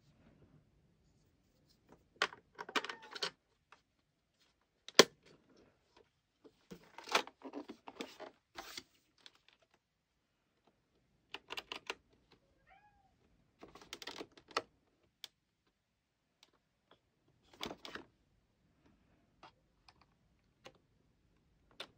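Bursts of typing on an ACTTO B503 retro Bluetooth keyboard, its round typewriter-style keys clicking in short clusters with silent pauses between. A cat meows faintly about halfway through.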